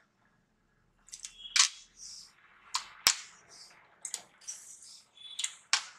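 Salt tipped by the spoonful into a steel pot of water: a run of sharp clicks of the spoon against metal, with short hissing pours between them.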